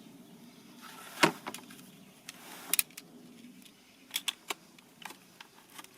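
Hard plastic of a water barrel lid being cut: a series of sharp, irregular snaps and clicks, the loudest about a second in and a quick cluster of three after about four seconds.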